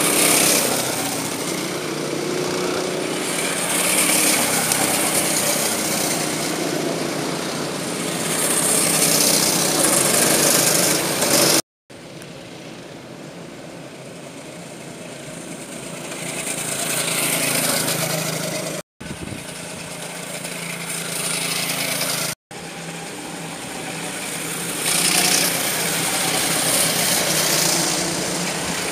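Racing kart engines buzzing as karts run past on the track, swelling loud several times as karts pass close by and fading as they go away. The sound cuts out briefly three times.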